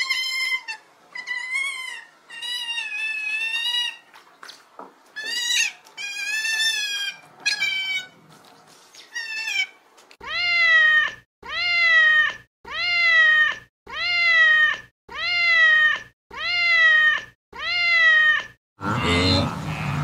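A cat meowing over and over: first a run of short, irregular meows, then from about halfway eight long meows, evenly spaced about a second apart and alike, each rising then falling in pitch. Near the end a different, noisier sound takes over.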